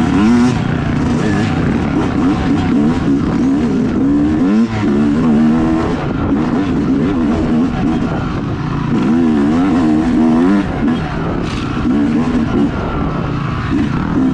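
Yamaha YZ250X dirt bike's single-cylinder two-stroke engine revving up and down again and again while it is ridden along a dirt trail, its pitch rising and falling with each throttle change.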